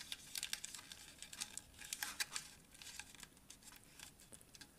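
Origami paper crinkling and crackling under the fingers as a flap is opened and squashed flat. A faint, quick run of small crackles, thickest in the first couple of seconds, then sparser.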